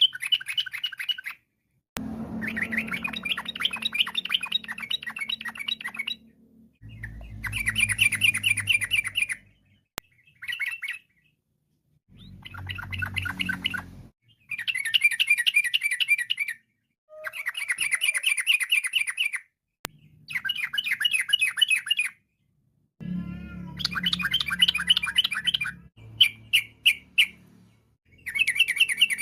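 Yellow-vented bulbul singing in bouts of fast, rapidly repeated chattering notes, each bout a few seconds long with brief pauses between.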